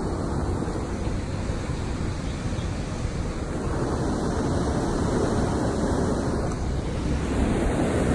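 Wind buffeting the phone's microphone, a steady low rush of noise.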